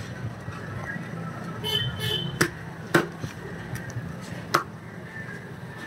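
A heavy butcher's cleaver chopping through chicken meat and bone onto a wooden chopping block: three sharp chops in the second half, the middle two about half a second apart.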